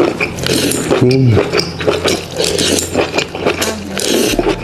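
Close-miked slurping and chewing of black tripe (beef omasum) strands dripping with chili oil: wet sucking, lip smacks and many quick mouth clicks, with a brief tone falling in pitch about a second in.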